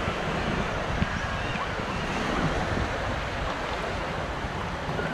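Sea surf washing steadily onto a sandy beach, with wind buffeting the microphone.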